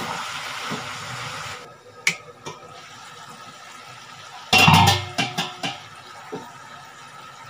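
Cabbage sizzling as it fries in a kadai; the sizzle stops abruptly about a second and a half in. About four and a half seconds in comes a loud metal clatter with brief ringing, as a pan lid is handled over the kadai, followed by a few lighter knocks.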